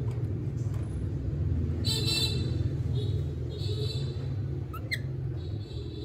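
Several short, high-pitched squeaks from a baby monkey over a steady low rumble, with a quick rising chirp about five seconds in.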